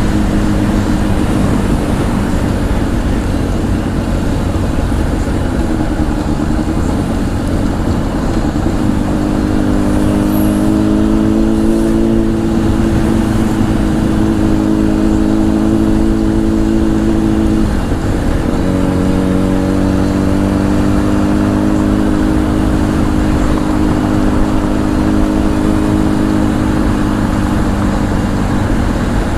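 Honda CBR1000 inline-four sport bike with a Two Brothers aftermarket exhaust running at a steady cruise, heard over a heavy low wind rumble. Its note steps up about nine seconds in and dips briefly once just past halfway before settling again.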